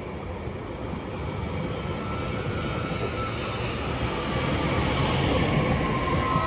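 Northern electric multiple unit running past along the platform: a steady rumble of wheels on the rails that grows louder toward the end as the last carriage goes by.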